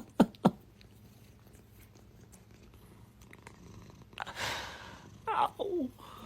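A cat vocalising: two short mews falling in pitch at the start, then quiet apart from a breathy puff a little after four seconds in, and a few more falling meows near the end.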